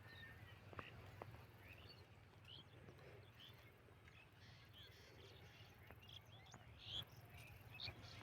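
Near silence outdoors: faint, scattered short bird chirps over a low steady hum, with a few soft clicks.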